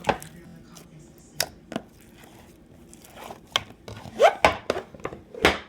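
Slime being squeezed and pressed by hand, giving a string of sharp pops and crackles, thickest and loudest near the end, with one short squelching squeak.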